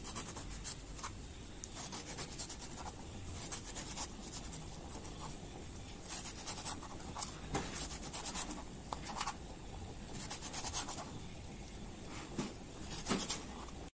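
Kitchen knife slicing a tomato on a glass cutting board: irregular short scraping cuts, about one a second, as the blade goes through the tomato and scrapes the hard board.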